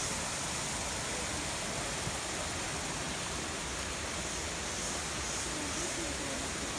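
Steady, even rushing noise at a constant level, like flowing water or wind.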